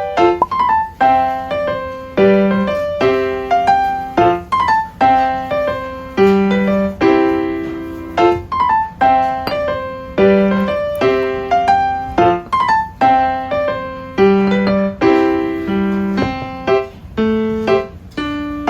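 Background piano music: a light melody of plucked-sounding keyboard notes in a steady, repeating rhythm.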